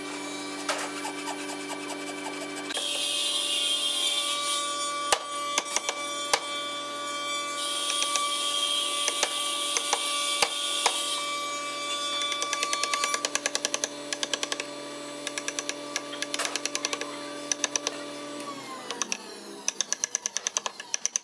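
A chisel being driven into hardwood with a mallet, giving a series of sharp knocks that come quicker and more regularly in the second half. Beneath them a shop machine hums steadily, then winds down about two-thirds of the way through. Two stretches of high hiss come early on.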